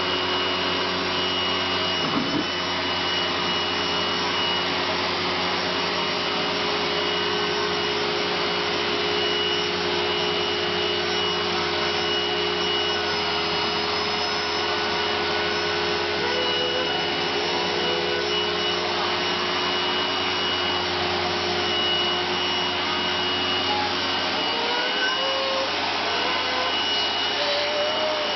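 Philips AquaTrio wet-and-dry floor cleaner running steadily, its motor giving a constant whine over a rushing noise, with its brushes rubbing along the floor as it vacuums and washes in one pass.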